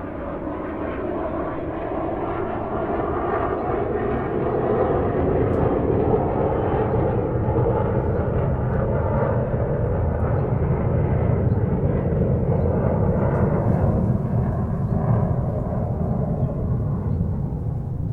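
Airplane cabin noise: a steady rush of engine and airflow noise with a low rumble, growing louder over the first five seconds or so and then holding level.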